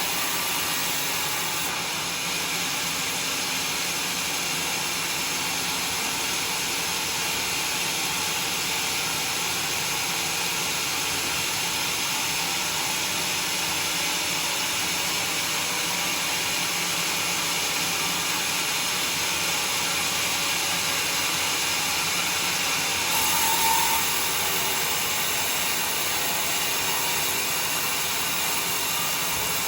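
Sawmill blade cutting through a bayur log, a steady noisy whir with a brief higher squeal about two-thirds of the way through.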